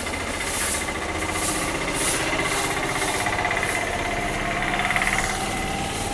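A motor engine running steadily, with short rustles of a plastic sack every second or so.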